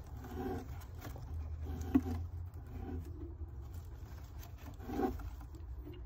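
Faint rubbing and scraping as a hand shifts a budgie hen off her eggs inside a nest box, with a sharp click about two seconds in.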